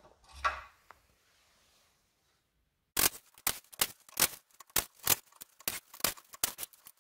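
Sharp, irregular metallic clicking of a hand tool working the bolts on the timing chain cover of a BMW R100 engine case, starting about three seconds in.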